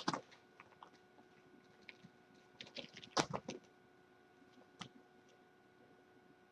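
Kittens' claws scrabbling and scratching on a carpet-covered cat tree: a few scattered scratches and taps, with a short cluster about three seconds in and a single tick near five seconds. A faint steady hum runs underneath.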